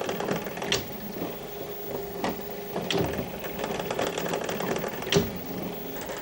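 A small machine running with a steady hum and fast, fine mechanical ticking, with four sharper clicks spread through it.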